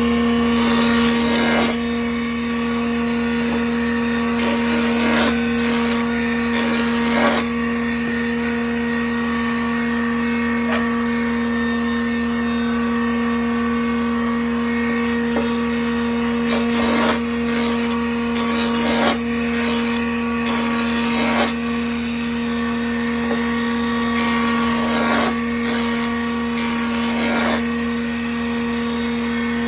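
Band saw running with a steady hum, its blade cutting wood sheet in several short spells, each adding a bright hiss over the motor.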